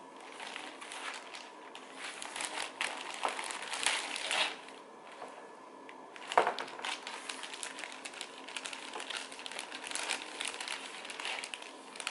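Clear plastic zip-top bag crinkling and rustling as small doll clothes and shoes are handled and pulled out, in irregular rustles with small clicks. One sharp knock about six seconds in is the loudest sound.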